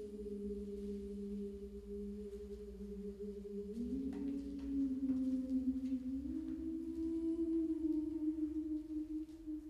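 Slow, droning performance music of long held notes in two lines, the lower note stepping up in pitch twice. A few faint clicks sound about halfway through.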